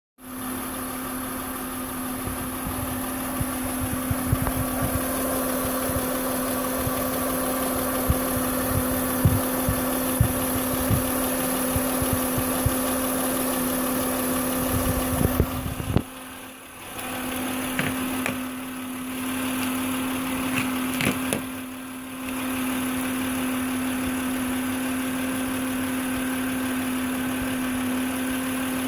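Idling 3.5L VTEC V6 of a 2006 Acura MDX with a steady whine from its old, failing alternator. Scattered low thumps sound through the first half, and the sound drops away briefly twice past the middle.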